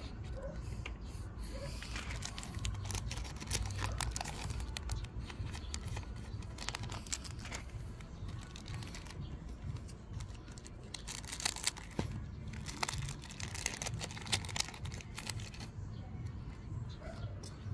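Foil Pokémon card booster pack wrappers crinkling and tearing open, with many small irregular clicks and rustles of handling.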